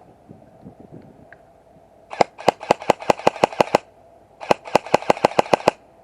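Airsoft gun firing two rapid strings of shots, about six a second: about ten shots, a pause of under a second, then about eight more.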